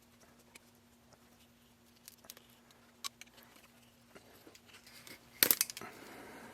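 Small clicks and light taps from the hand removal of loose brass wear bands and the seal from a hydraulic cylinder piston, with a sharper clatter of several clicks about five and a half seconds in, over a faint steady hum.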